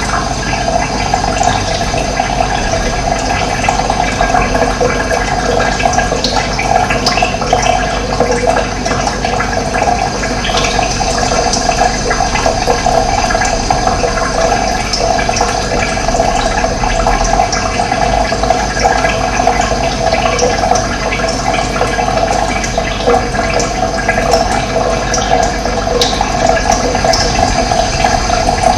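Running water flowing steadily: a loud, even rush with no break.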